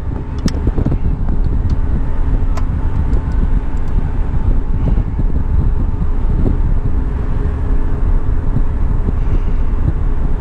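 Wind buffeting an exposed camera microphone, a loud steady rumble with a faint steady hum underneath. A few light clicks come from hands working on the radar antenna's gearbox housing, one about half a second in and another a little after two and a half seconds.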